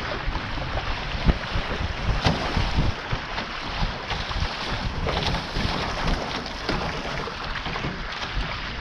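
Water rushing and splashing along the hull of a Taipan 5.7 catamaran sailing at about 16 km/h, with wind buffeting the microphone.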